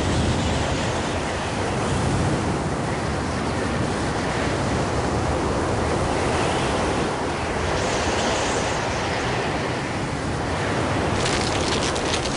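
Strong wind blowing in gusts, a steady rushing noise that swells and eases. About a second before the end a rapid rattling starts over it.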